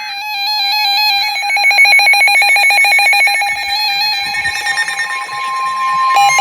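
Several NOAA weather radios sounding their alert alarms together as a severe thunderstorm warning comes in: overlapping electronic beeps and tones. About four and a half seconds in, a steady 1050 Hz weather radio warning tone joins them.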